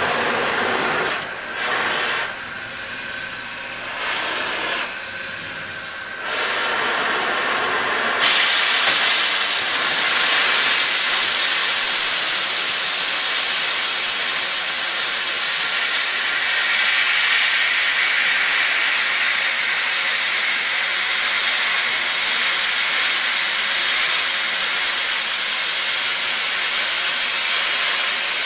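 Mechanized oxy-fuel cutting torch hissing. About eight seconds in, the hiss jumps suddenly to a louder, harsher, steady rush that holds to the end, as when the cutting-oxygen jet is switched on and the torch is cutting steel plate.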